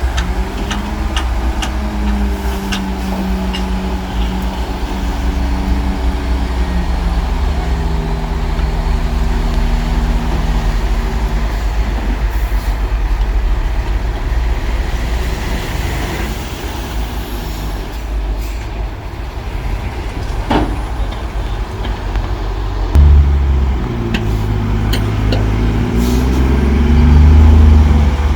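Heavy diesel earthmoving equipment working, its engine note rising and falling, with scattered metallic clicks. About 23 seconds in, an engine suddenly gets louder and revs higher.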